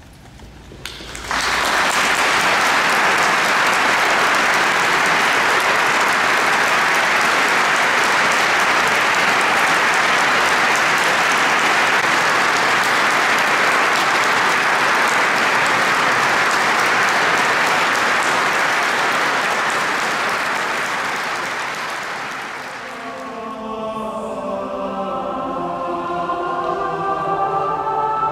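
Audience applauding: it breaks out about a second in, holds steady for some twenty seconds, then dies away. Near the end a choir starts singing.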